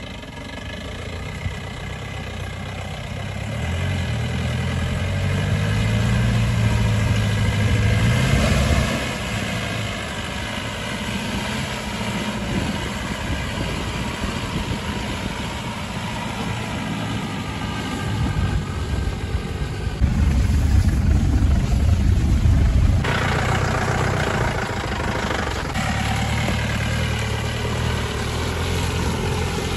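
SUV engine labouring at low speed through deep mud, its revs climbing for a few seconds and then easing off, with a louder surge about two-thirds of the way through. After the surge a rushing noise comes in over the engine, from the tyres churning the mud.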